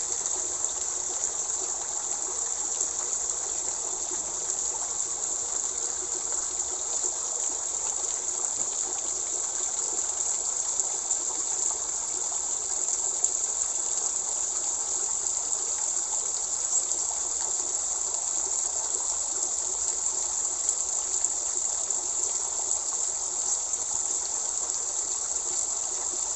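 Steady running water, a continuous splashing hiss of water flowing into a garden fish pond.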